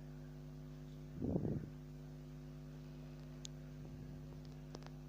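Steady low electrical hum, with one short, louder sound about a second in and a few faint ticks later.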